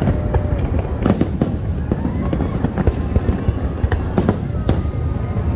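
Aerial fireworks shells bursting one after another over a continuous low rumble, with the sharpest bangs about a second in and twice around four seconds in.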